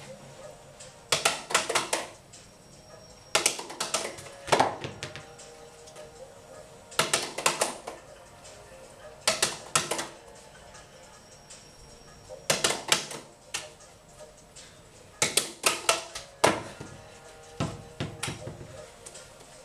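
Juggling clubs clacking in clusters of sharp knocks about every two to three seconds, each flurry lasting about a second, over faint steady background music.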